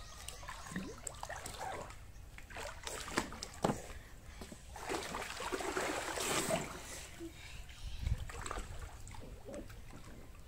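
Swimming-pool water splashing and sloshing, with irregular small splashes.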